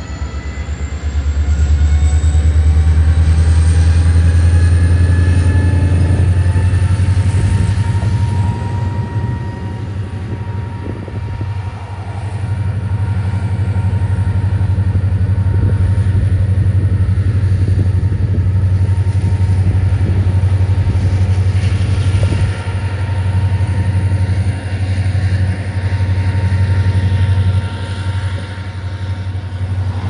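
Diesel-electric freight locomotive pulling away with its train of hoppers, its engine giving a steady heavy low rumble. A whine rises in pitch over the first several seconds.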